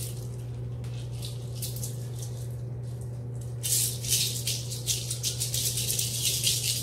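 A filled pink balloon squishy being shaken fast in the hand, its contents rattling in quick strokes, lighter at first and louder and denser in the second half.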